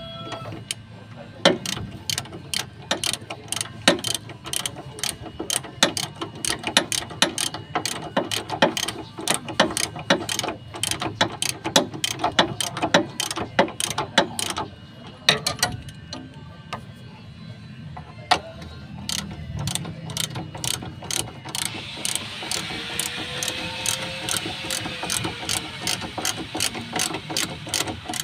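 Hand ratchet wrench clicking in quick, irregular runs as bolts on the rack-and-pinion steering are tightened, with a pause of a few seconds about halfway through.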